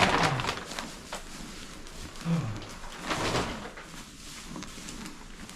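Cattle at a feed trough: two short, low, falling cow grunts, with noisy rustling of feed at the start and again about three seconds in.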